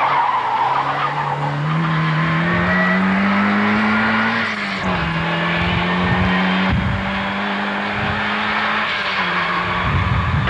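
Rally car engine pulling hard, its pitch climbing over the first few seconds. The pitch drops at a gear change about four and a half seconds in, then holds steady under load. A tyre squeal at the start fades out within the first second.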